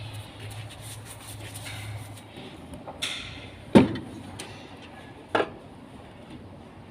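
A low steady hum that fades out about two seconds in, followed by a short scrape and then two loud knocks or bangs about a second and a half apart, the first the louder and ringing briefly.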